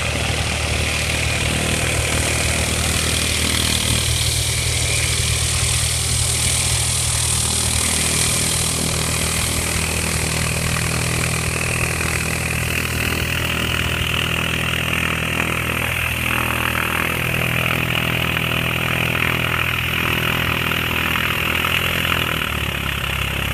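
Light piston-engine helicopter running steadily: a constant engine and rotor drone with a hiss over it. Its pitch shifts slightly a few times.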